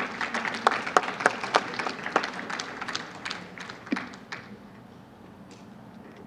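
Audience applauding: a scatter of separate hand claps that thins out and dies away after about four seconds.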